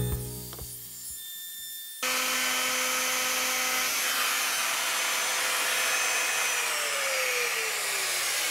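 Handheld electric router cutting a radius along the edges of an apple and walnut cutting board: a loud, steady motor whine with cutting noise cuts in about two seconds in. Near the end the router is switched off and its pitch falls as it spins down.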